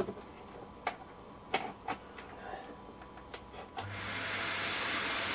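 A few small clicks and knocks of parts being handled on a workbench. About four seconds in, a steady hiss with a low hum starts up and keeps going.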